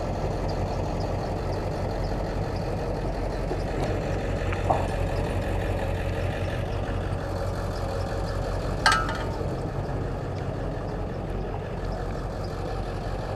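Pickup truck engine idling steadily, a low even hum. One sharp knock with a short ring stands out about nine seconds in.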